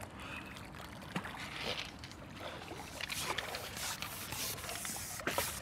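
Water splashing and sloshing in bursts as a hooked mirror carp thrashes at the surface and is drawn into a landing net.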